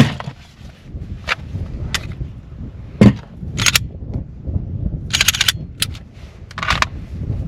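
A string of sharp cracks or bangs at uneven intervals. Most are single, but there is a quick rapid-fire run about five seconds in. Low wind rumble on the microphone underneath.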